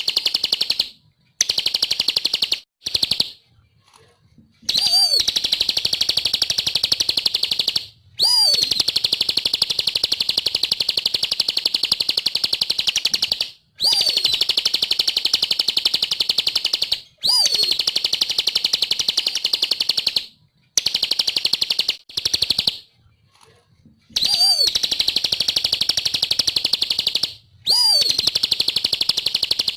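Bar-winged prinia (ciblek) singing a fast, high, buzzing trill in long bouts of several seconds, broken by short pauses, with a swooping note at the start of several bouts.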